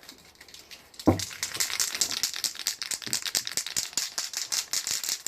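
Aerosol can of Tamiya black polycarbonate spray paint being shaken hard, its mixing ball rattling rapidly inside to mix the paint before spraying. The rattling starts about a second in after a single low knock.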